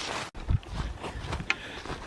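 Footsteps and rustling of a hiker setting off along a woodland trail, with a few soft, uneven thumps.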